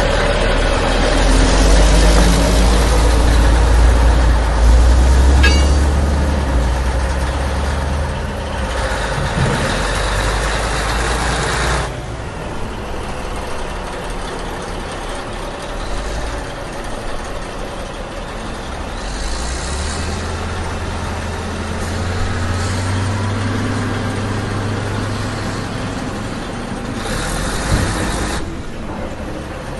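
Heavy engine running unevenly, like a truck or digger. It is loudest early on, drops about twelve seconds in, and swells again later with a deeper rumble.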